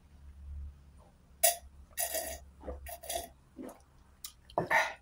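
A man drinking from a glass, then making several short, separate throat and mouth sounds: swallows, sharp breaths out and a burp. The loudest come about a second and a half in and near the end.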